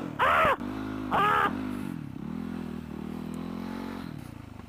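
Dirt bike engine running at a steady speed, its note dipping briefly about two seconds in. Two short, loud shouts come over it in the first second and a half.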